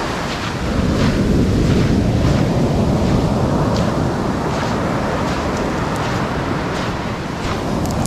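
Small waves breaking and washing up a sand-and-pebble shore, mixed with heavy wind rumble on the microphone, a little louder between about one and three seconds in.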